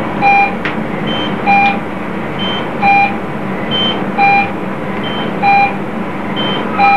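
Electronic beeps in a repeating two-note pattern, a high beep followed half a second later by a lower one, the pair recurring about every 1.3 seconds over a steady background hum.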